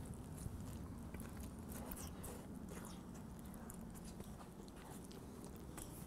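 A person biting into and chewing a toasted sub roll filled with buffalo chicken and cheesesteak, heard faintly as scattered small clicks and crunches over a low steady hum.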